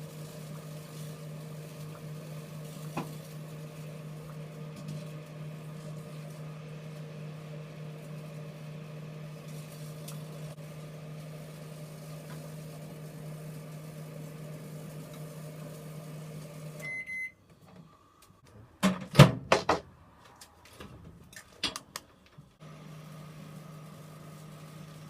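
Microwave oven running with a steady hum that stops with a short beep about 17 seconds in. Several loud knocks follow, and the oven hum starts again near the end.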